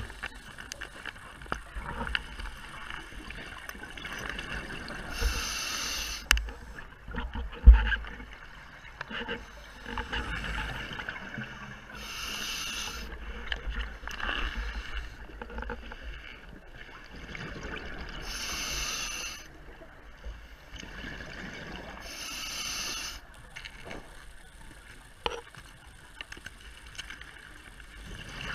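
Scuba regulator breathing heard underwater: four bursts of exhaled bubbles, each about a second long and several seconds apart, over steady low water noise. A dull knock about eight seconds in is the loudest sound.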